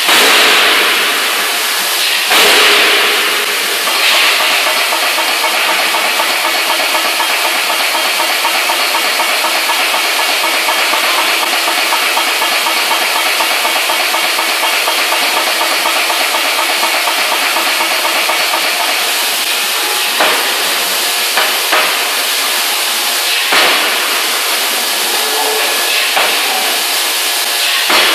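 CNC hydraulic die forging hammer running with a steady loud hiss from its hydraulics. There are heavy surges in the first few seconds and a handful of short, sharp knocks in the last third.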